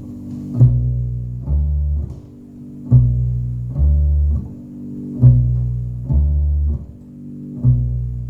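Solo upright double bass plucking a repeating two-note figure, a higher note then a lower one, four times over, played back through Klipsch R-51M bookshelf speakers.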